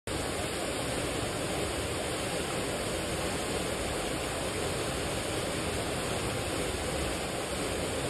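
Yuhi Falls, a narrow waterfall about 20 m high, pouring into its plunge pool, together with water spilling over the rocks below it: a steady, even rushing of falling water.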